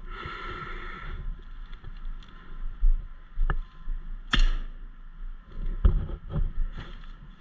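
Low thumps and rustling of movement close to the microphone, with a thin sharp click about three and a half seconds in and a louder sharp snap just after four seconds.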